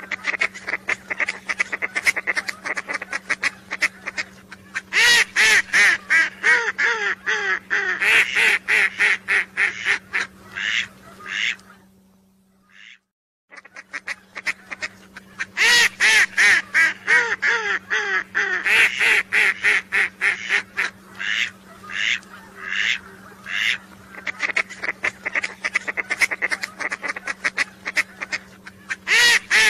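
Whistling ducks calling: dense runs of rapid, high whistled notes over a steady low hum. About halfway through, the sound cuts out suddenly for about a second, then the recording starts over.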